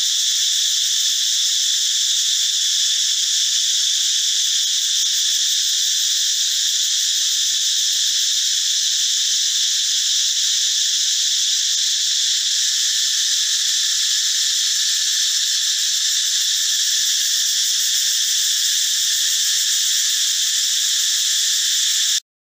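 Cicadas calling: a loud, steady, high-pitched buzz that holds without a break, then cuts off suddenly near the end.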